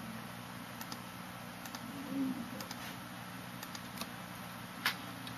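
A steady low electrical hum with scattered faint clicks, and one sharper click near the end.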